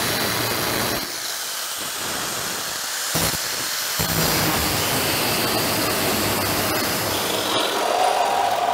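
Angle grinder with a cut-off disc cutting through the steel A-pillar of a 1951 Chevy truck cab: a steady hiss that eases off for a couple of seconds about a second in, then resumes at full strength. Near the end a reciprocating saw takes over, its motor giving a steady whine.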